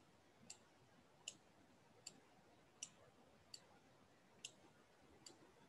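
Faint computer mouse clicks, about seven of them, spaced roughly three-quarters of a second apart over near silence.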